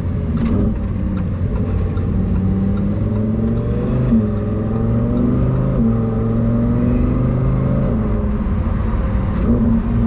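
Lamborghini Huracán STO's V10 engine running under way in third gear, heard from inside the cabin, with road and tyre noise beneath it. The engine note holds fairly steady, shifting slightly in pitch a few times.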